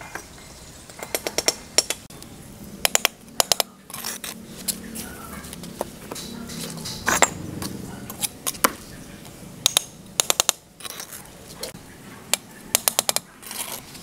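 Sharp clicks and taps from hand work on a hard material, several coming in quick clusters of three to six.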